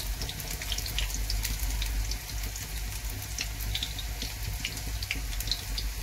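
Soya-chunk and besan pakoras deep-frying in hot oil in a kadhai: a steady sizzle with many scattered crackles and pops.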